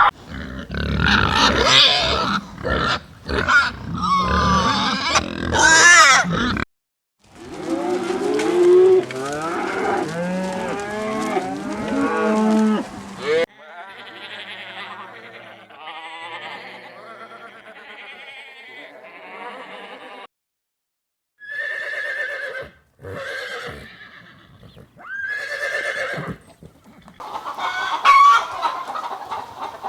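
A string of different farm animal calls, one recording after another with short breaks between them: wavering, pitched calls, some from several animals at once.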